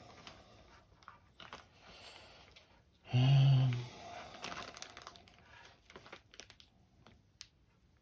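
Small rustles, crinkles and clicks of wires and small parts being handled, with a short low hum from a person's voice about three seconds in.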